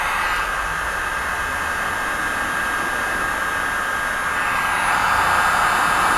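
Hand-held hot-air dryer running steadily, blowing on freshly applied print colour to dry it on the leather. It grows a little louder near the end.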